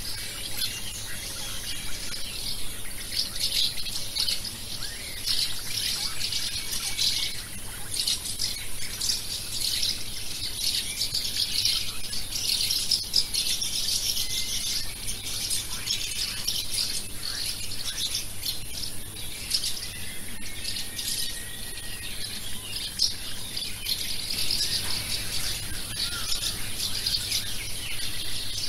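Dawn chorus of many small birds chirping and twittering densely and continuously, over a steady high-pitched hiss.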